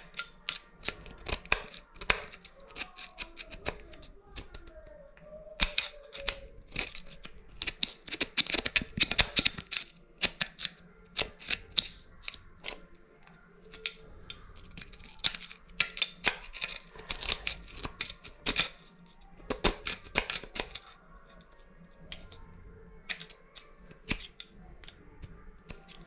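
Irregular sharp clicks and clattering, in clusters with short pauses, as small metal parts and tools are handled during shower-valve work.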